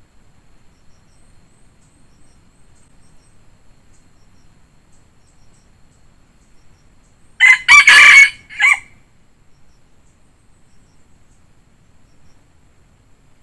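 A red junglefowl rooster crowing once, about seven seconds in. The crow is short and ends in a brief clipped final note.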